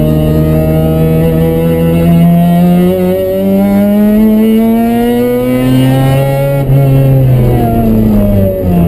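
Mazda RX-7's rotary engine heard from inside the cabin under hard acceleration: the revs climb, break briefly about three seconds in, climb again, then fall away over the last two seconds.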